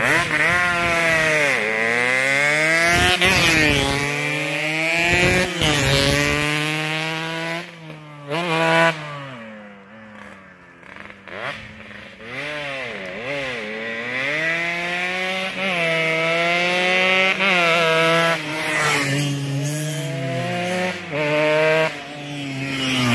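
Yamaha RX-King two-stroke motorcycles racing past at full throttle, the engine pitch climbing and dropping again and again with each gear change. There is a quieter lull about ten seconds in before the next bike comes through.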